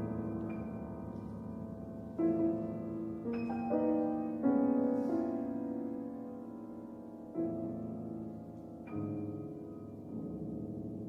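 Solo piano playing slow, contemporary classical music: chords struck a few seconds apart, each left to ring and die away.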